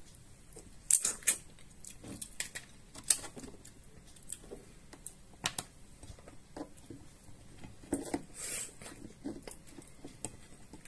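Cooked king crab leg being picked apart by hand: irregular sharp clicks and cracks of shell as the meat is pulled out, the loudest about a second in and about three seconds in.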